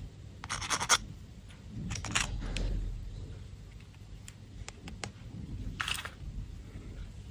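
Candy packaging handled close to the microphone: three short scratchy rustles, with a few light clicks between the second and third.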